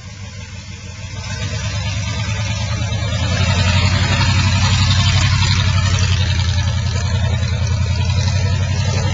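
1980 Ford F-150's 351M V8 engine running as the truck pulls away slowly. Its low, even exhaust note grows louder over the first few seconds and then holds steady. The owner thinks it is running a little rich.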